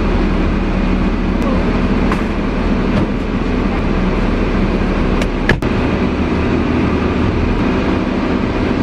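Steady low hum and rumble of a running car heard from inside the cabin, with a single sharp click about five and a half seconds in.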